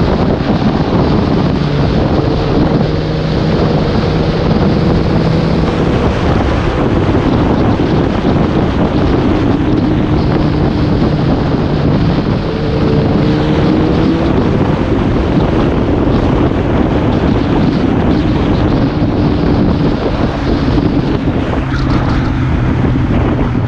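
Wind rushing hard over the microphone of a camera on a moving motorcycle, with the bike's engine running steadily underneath and its pitch rising gently a couple of times as the throttle opens.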